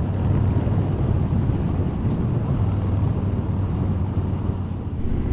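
Motorcycle riding at a steady speed: a steady low engine hum with wind and road rush, heard through a helmet microphone.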